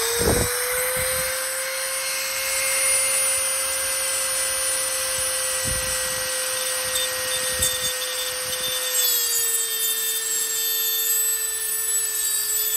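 Dremel rotary tool with a cut-off wheel grinding through the steering lock's metal retaining bolt: a steady high whine over a grinding hiss. The pitch drops slightly about nine seconds in.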